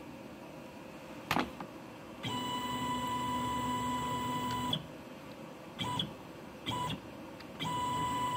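Hobby CNC machine's stepper motors whining steadily as the spindle carriage jogs along the axis: one move of about two and a half seconds, two brief blips, then another move starting near the end. A single sharp click a little over a second in.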